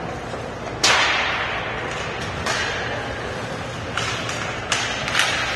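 Sharp cracks of hockey sticks and puck striking during ice hockey play: one hard crack about a second in, then several lighter ones, each echoing in the rink.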